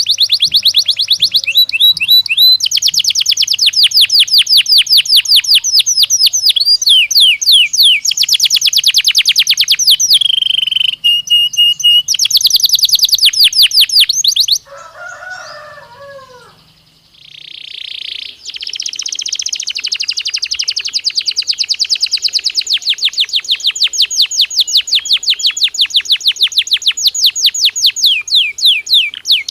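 Belgian canary singing in long, fast trills of rapidly repeated high notes, several rolls in a row. Just past the middle the song breaks off for a few seconds, with a few lower, falling notes, then a new long trill starts.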